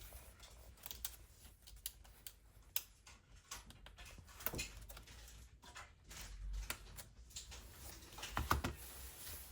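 Scattered light clicks and taps of small parts and tools being handled on a repair bench, with a louder cluster of knocks near the end.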